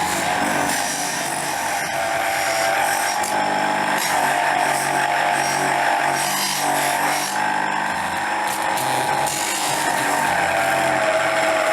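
A power tool running steadily, its pitch wavering slightly as it works.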